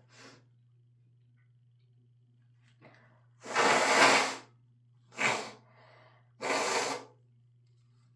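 A person blowing a congested nose hard, three times: a long blow of about a second, a short one, then another half-second blow. The nose is stuffed up from a cold and allergies.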